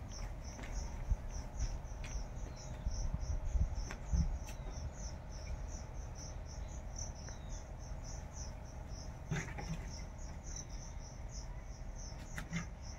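Cricket chirping steadily, a high-pitched pulse repeating about three times a second, over a low rumble, with a few light clicks in the last few seconds.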